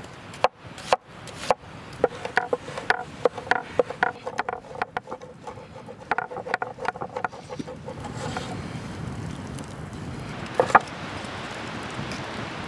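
Knife blade chopping on a wooden cutting board, rapid irregular taps a few times a second as food is minced. Around two-thirds of the way through, the taps thin out and a steady rushing noise comes up underneath.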